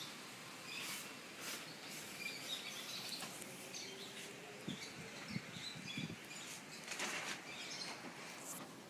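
A cereal bag rustling and crinkling in short, irregular bursts as a dog moves about with its head inside it, with a few soft knocks along the way.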